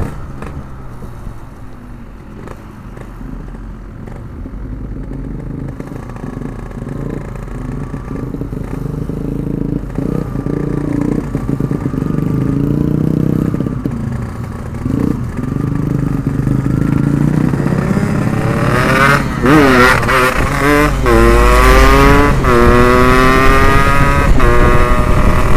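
Yamaha two-stroke motorcycle with an Abbox C20 aftermarket exhaust being ridden. The engine runs fairly quietly at first, then from about two-thirds of the way in it is revved hard, its pitch rising and falling through several quick accelerations.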